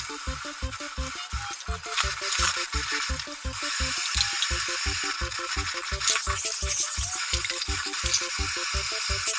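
Kitchen tap water running into a sink as dishes are washed, with scattered clinks of dishes and utensils, over background music with a steady beat.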